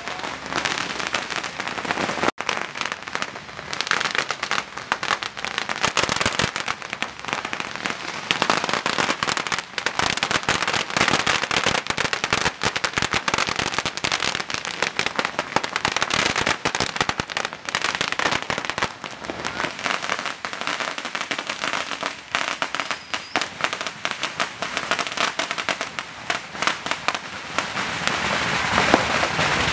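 Firecrackers going off one after another in a dense, continuous crackle of sharp, overlapping bangs, growing a little louder near the end.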